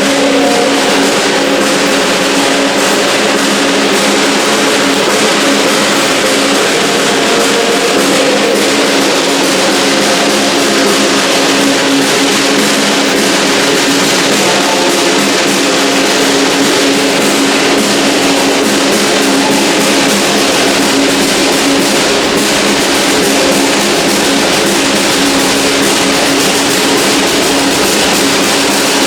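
A busker playing live music, steady and loud, with a guitar-like sound and some drumming.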